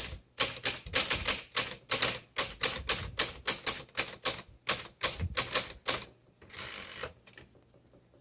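1946 Smith Corona Silent manual typewriter being typed on, a steady run of key strikes about three to four a second. Near the end the typing stops and a softer rasp lasts about half a second, followed by a few faint ticks.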